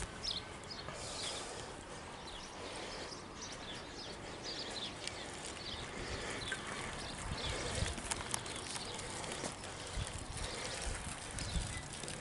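Birds chirping and calling repeatedly over a steady outdoor hiss, with a few low thumps now and then.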